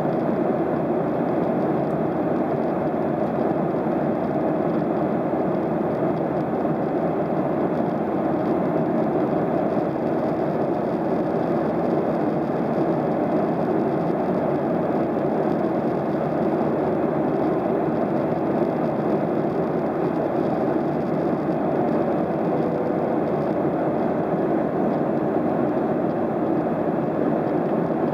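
Steady cabin noise inside a Boeing 737-700 in flight: the even rush of airflow over the fuselage mixed with the hum of its CFM56-7B turbofan engines, holding level with no change.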